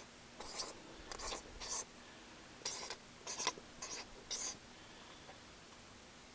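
Pen scribbling by hand: about seven short scratchy strokes over the first four and a half seconds, then it stops.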